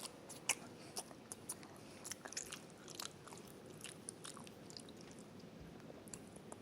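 A person chewing a slice of bologna: irregular short smacking clicks, growing sparser after about four seconds.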